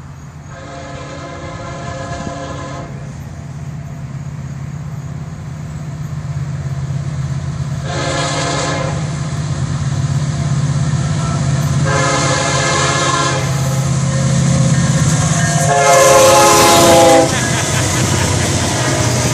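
Approaching diesel freight locomotive sounding its horn for a grade crossing in four blasts, the first the longest and the last the loudest. Under the blasts the low rumble of the diesel engines grows steadily louder as the train draws near and passes.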